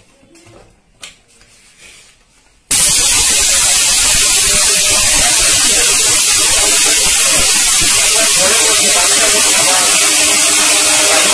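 An Orpat 1200-watt mixer grinder's 26,000 RPM motor switches on about three seconds in and runs at full speed. It gives a loud, steady whirring noise as it grinds parboiled rice into flour in the small stainless-steel dry jar.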